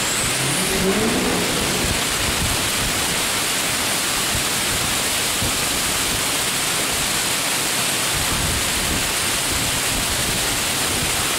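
Heavy rain pouring down in a torrential downpour, a dense, steady rush of rain on the ground and nearby surfaces.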